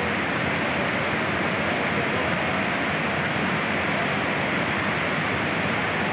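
Steady rush of fast-flowing muddy floodwater, an even noise that does not change.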